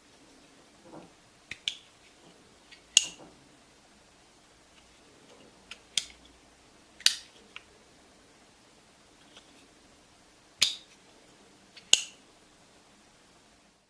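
Folding pocket knife's blade and lock snapping as it is opened and closed: about six sharp metallic clicks at irregular intervals, with a few fainter ones between.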